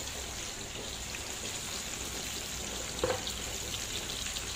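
Mushrooms and bell pepper frying in a hot pan with a steady sizzle. About three seconds in there is a single knock.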